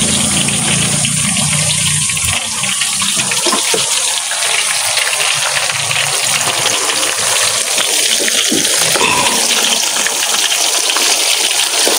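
Banana fritters sizzling steadily in hot frying oil in a wok.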